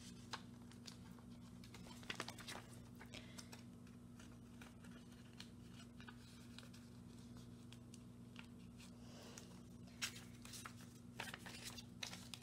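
Faint rustling and light clicks of plastic photocard sleeves and cards being handled, a few louder clicks about two seconds in and again near the end, over a steady low hum.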